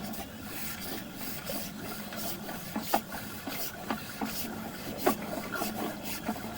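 Sewer inspection camera push rod being fed by hand down a cast iron cleanout with a water hose running into it: a steady rushing hiss with irregular knocks and clicks as the rod and camera head bump along the pipe.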